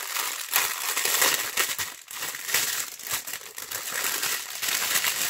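Plastic crinkling and crackling as a rolled strip of small sealed plastic bags of diamond painting drills is handled and unrolled.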